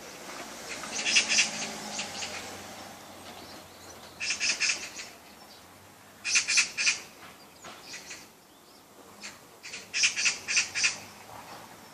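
A bird calling in short bursts of rapid, repeated high chirps, four bursts a few seconds apart.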